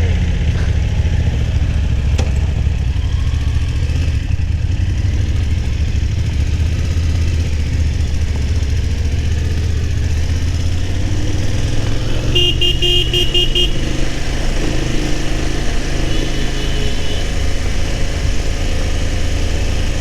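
Motorcycle engine running steadily. About twelve seconds in, a horn is tooted in a quick run of short beeps, with a fainter run a few seconds later.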